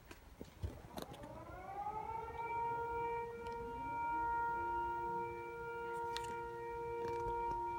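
Noon siren of the town's public warning system winding up from about a second in, its pitch rising and then holding one steady wail. A second, lower steady tone slides up and joins it around four seconds in, with a few faint knocks.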